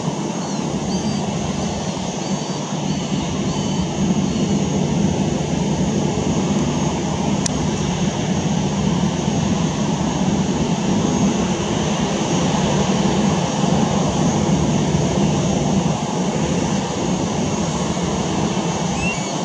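Boeing 737-800's CFM56-7B turbofan engines running steadily at low thrust as the airliner taxis past close by.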